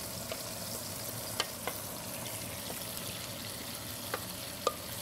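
Food sizzling steadily in a frying pan, with a few light clicks of kitchen utensils.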